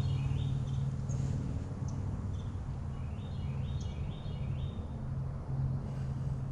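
A songbird singing short phrases of stepped chirps, a few times, over a steady low mechanical hum.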